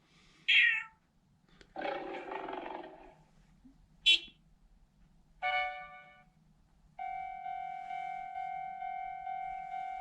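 A string of short comedy sound effects with gaps between them: a couple of brief sharp sounds, a longer cry-like sound about two seconds in, a pitched tone that fades out at about five and a half seconds, and from about seven seconds a steady buzzer-like tone.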